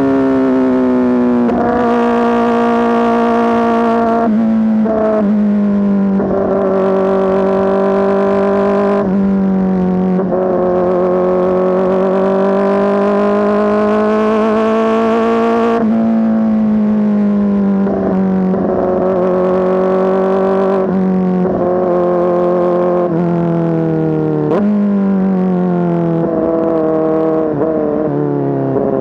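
Kawasaki ZX-4RR inline-four with an SC-Project S1 exhaust, running loud under way. Its pitch holds or slowly rises, then drops suddenly several times as the rider changes gear.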